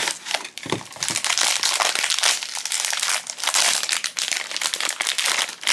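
Crinkling and rustling of a foil blind-box bag and its cardboard box as hands pull the bag out and work it open, with a brief lull about half a second in.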